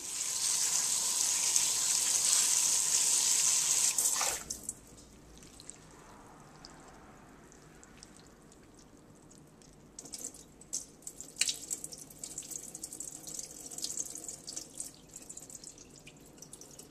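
Kitchen tap running into a sink for about four seconds, then shut off. From about ten seconds in come irregular small splashes and drips as cut okra is stirred by hand in a plastic bowl of water and the water is tipped out.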